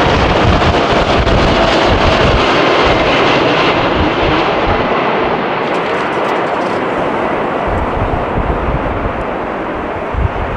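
Jet airliner engine noise slowly fading as the aircraft moves away, with gusts of wind buffeting the microphone.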